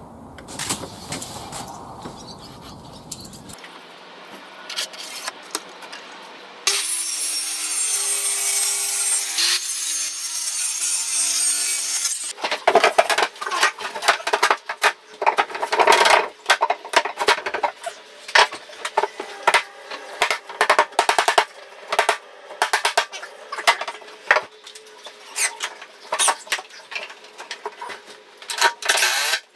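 A power saw cutting plywood runs loudly for about five and a half seconds, its motor note wavering slightly under load. It is followed by many irregular knocks and clatter as a plywood panel is handled and fitted against a pine bed frame.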